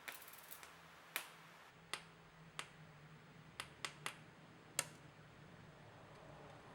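Drill bits clicking onto magnets: about ten short, sharp clicks at irregular intervals, some close together in quick pairs and triples.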